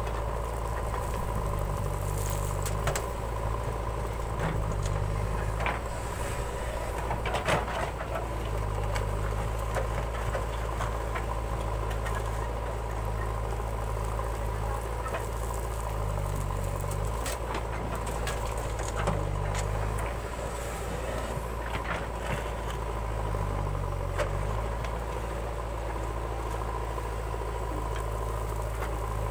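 JCB 3DX backhoe loader's diesel engine running steadily while its backhoe arm digs into soil, the engine note shifting briefly several times. A few sharp knocks from the digging sound over it.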